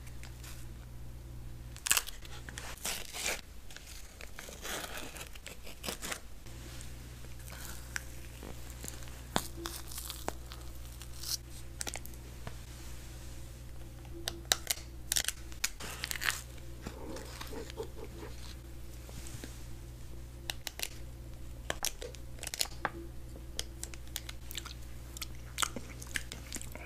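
Ice cream being scooped from a cardboard tub and pushed into a crisp bubble waffle: scraping, crackling and scattered sharp clicks, close to the microphone.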